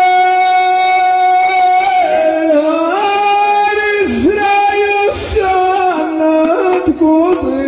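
A man's voice singing a solo Amazigh ahwach verse through a microphone and loudspeakers: long held, high notes with short ornamental bends between them.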